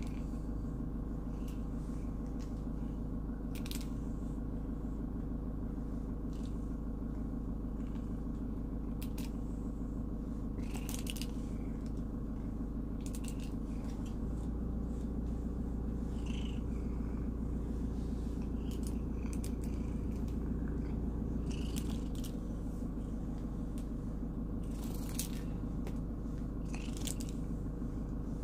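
Tabby cat purring steadily close by, with short scratchy strokes of a wire-bristle slicker brush through its fur every second or two.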